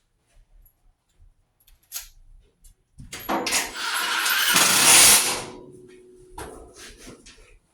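Power drill running for about three seconds, rising to its loudest near the end of the run and then winding down, with a sharp click just before it starts.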